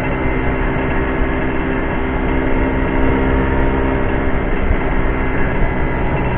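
Vespa scooter engine running steadily while being ridden, heard from the rider's seat, its even engine note over a constant road rush.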